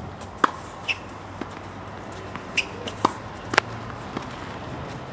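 Tennis balls being struck by a racket and bouncing on a hard court: a series of sharp knocks, about six in all, the loudest about three and a half seconds in. Two short high squeaks come in between, about a second and two and a half seconds in.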